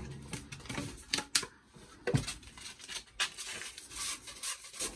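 White PVC drain pipe being handled and rubbed: a string of short scraping strokes and light knocks, coming a few a second in the second half.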